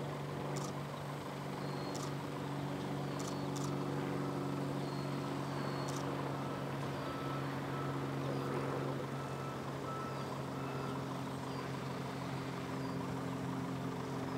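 Piper Cub floatplane's engine and propeller running steadily at power on its takeoff run across the water, a steady drone whose pitch shifts slightly about nine seconds in.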